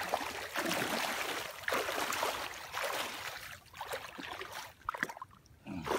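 Water splashing and sloshing as a big catfish thrashes at the water's edge while it is landed. The splashing is heaviest over the first three seconds or so, then drops to a few short splashes near the end.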